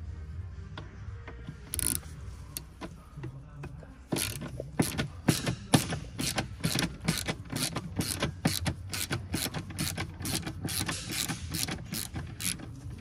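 Hand ratchet on a socket extension clicking steadily, about three to four clicks a second, as it backs out a T30 Torx screw. The clicking starts about four seconds in.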